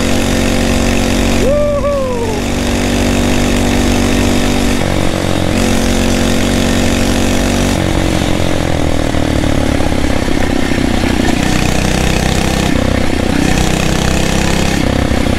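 Phatmoto Rover's 79cc four-stroke engine, its governor removed, running hard on the motorized bicycle during an off-road ride. Its pitch shifts a couple of times with the throttle. About a second and a half in there is a short squeal that rises, then falls.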